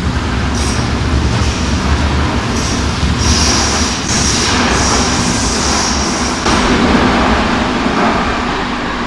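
Madrid Metro Serie 2000A train pulling out of the platform, with a steady rumble and repeated clicks of the wheels over the rail joints. A high wheel squeal rises from about two and a half seconds in and stops at about six and a half seconds. The train fades as it enters the tunnel.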